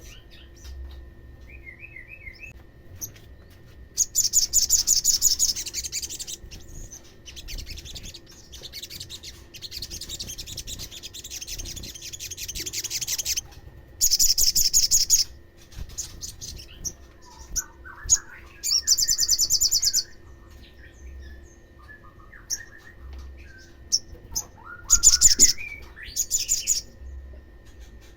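Olive-backed sunbird singing: a series of fast, high trills, each one to two seconds long, with softer twittering notes between them.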